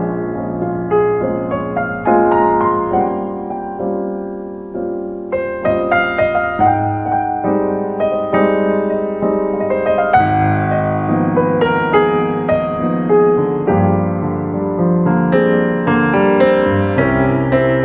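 Background piano music: single notes and chords played at a gentle, steady pace.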